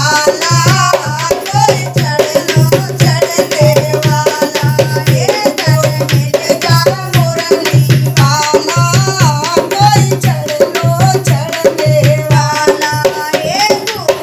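Women singing a Hindi devotional bhajan to a steady, loud dholak beat played by hand, with a metal spoon clicking a quick rhythm on the drum.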